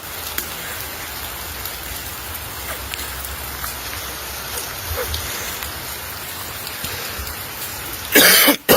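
Steady rain falling, with scattered drops ticking. Near the end there are two short, loud rushes of noise.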